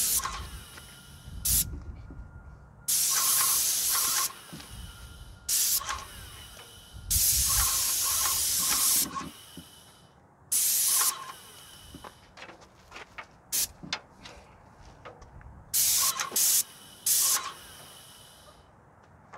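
Graco 390 airless paint sprayer with a 514 fine-finish low-pressure tip, set at about 1800 psi, spraying paint in passes. The gun is triggered on and off about nine times, giving hisses from a fraction of a second to about two seconds long, each cutting off sharply. The last one stops near the end.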